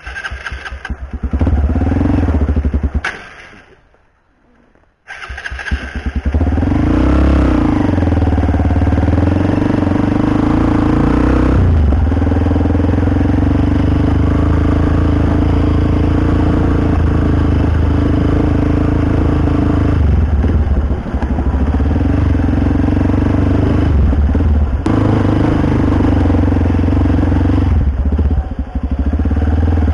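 Small motorcycle engine running, with a near-silent gap a few seconds in, after which it runs steadily with the engine speed rising and falling as it is ridden.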